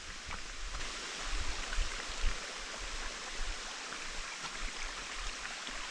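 Steady rushing of a mountain stream, a broad hiss of flowing water that swells a little about a second in. Irregular low bumps sit underneath it.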